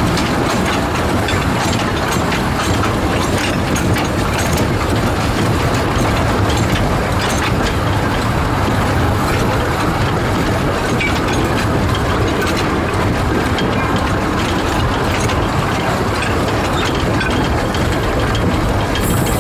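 The 1924 Wee Georgie Wood narrow-gauge (610 mm) steam train running, heard from the carriage behind the locomotive: a steady rumble of wheels on track with scattered clicks and knocks.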